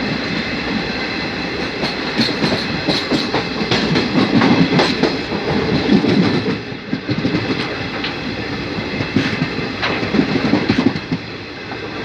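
Passenger train running along the track, heard from on board: a steady rumble with irregular clicks of the wheels over rail joints.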